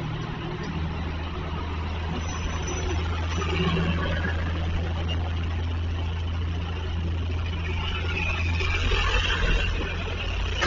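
A motor vehicle's engine idling as a steady low rumble, while traffic passes on the street, swelling twice.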